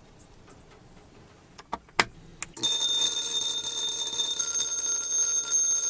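A few sharp clicks, then about two and a half seconds in a restored vintage electric bell starts ringing, its clapper hammering the chrome gong in a continuous, steady, high-pitched ring.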